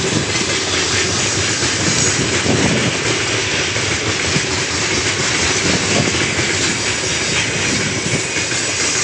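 Heavy freight train of open gondola wagons rolling past close by: a steady, loud rumble and rattle of wagon wheels running on the rails.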